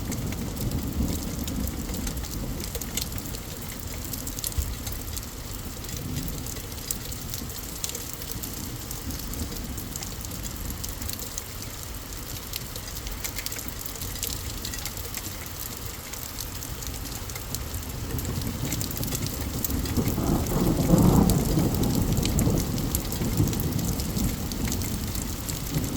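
Steady rain falling, with individual drops ticking, under a low thunder rumble. The rumble swells louder about three-quarters of the way through.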